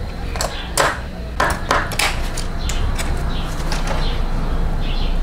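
Small sharp clicks and taps of a screwdriver and fingers working screws and parts on the front end of a die-cast metal model car, with several crisp clicks in the first two seconds and softer ones after.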